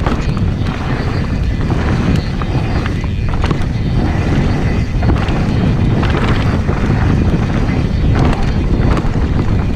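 Mountain bike rolling fast down a dirt and gravel trail: a steady rumble of wind on the microphone and tyre noise, with scattered clicks and knocks from the bike over the rough ground.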